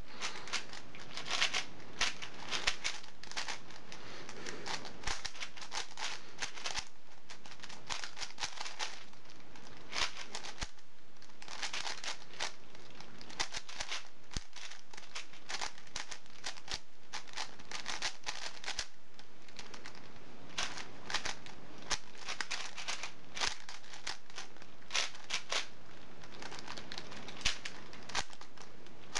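Yuxin 4x4 and 5x5 plastic speedcubes being turned fast during a timed solve: a continuous rapid clatter of clicking layer turns.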